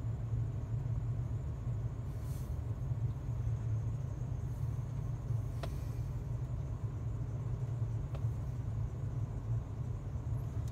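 Ford 6.8 L Triton V10 engine of a Ford E-450 motorhome idling steadily, heard from inside the cab, with the engine not yet warmed up.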